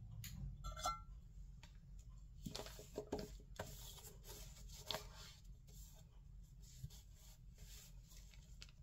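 Faint scattered light taps and rustles of handling, with a short squeak about a second in.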